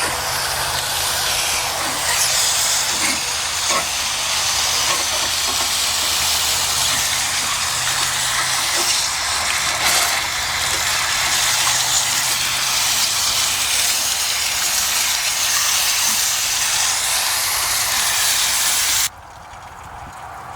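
Water spraying hard from a garden hose through a homemade coil-rinsing nozzle onto a dehumidifier's coils, rinsing off coil cleaner: a steady hiss that cuts off suddenly near the end.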